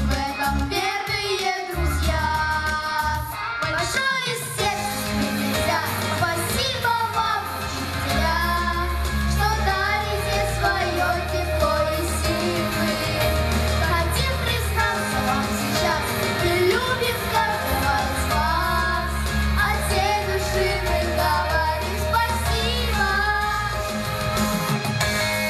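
A trio of children singing a song together into handheld microphones over backing music with a steady bass line.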